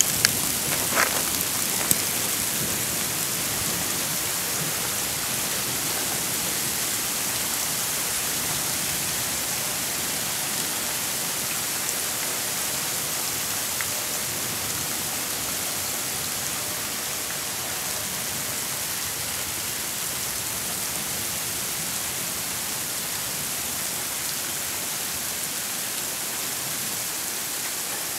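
Hailstorm: a steady, even hiss of hail and rain falling, with a few sharp clicks in the first couple of seconds.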